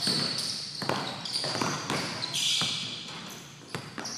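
A basketball bouncing several times on a gym floor, with sneakers squeaking on the court between bounces, echoing in a large gymnasium.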